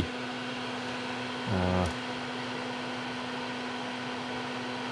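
Steady low electrical or fan hum over a faint hiss, with a short hummed 'mm' from a man about a second and a half in.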